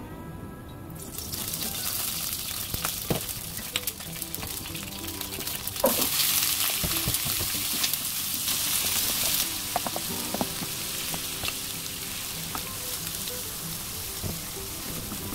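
Potato wedges sizzling in hot oil in a nonstick wok, the sizzle starting about a second in, with knocks of the potatoes going in and a silicone spatula stirring them, the loudest knock about six seconds in. Soft background music runs underneath.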